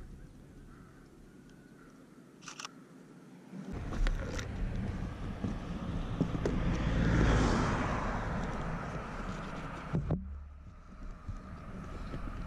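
A vehicle passing on the road: a rushing noise swells to a peak about seven seconds in and fades away. A few sharp clicks, likely camera handling, come earlier, and the sound turns muffled near the end.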